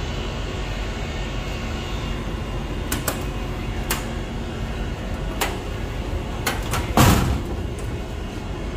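Metal switchboard starter-panel door being unlatched and swung open, giving several sharp clicks and a louder clunk about seven seconds in, over a steady machinery hum.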